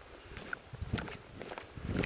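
Footsteps of a player walking over outdoor ground, about two steps a second, with a few small sharp clicks between steps.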